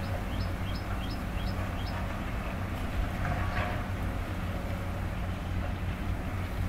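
Heavy diesel engines of excavators running steadily with a low hum. Early on comes a quick run of about five short, high, rising chirps.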